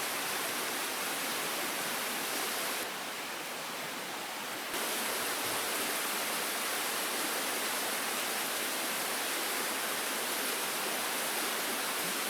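Steady rushing noise with no distinct events, easing slightly for a couple of seconds about three seconds in.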